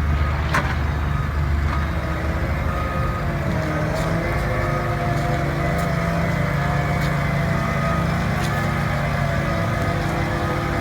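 Caterpillar AP655D asphalt paver's diesel engine and hydraulics running steadily, with a few sharp clicks scattered through.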